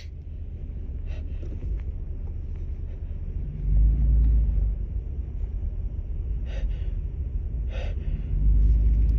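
A woman's few short gasping breaths as a sneeze builds, over a steady low rumble that swells twice.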